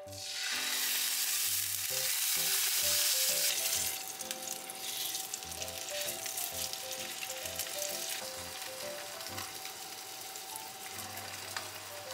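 Pork roast frying in hot oil in a frying pan: a loud sizzle breaks out suddenly as the meat goes into the pan, easing after about four seconds to a steady frying sizzle as it browns.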